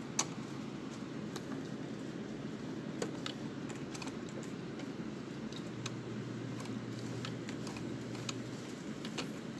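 Scattered light clicks and taps of fingers handling a sewing machine's open bobbin compartment while taking out the bobbin case, over a steady low hum.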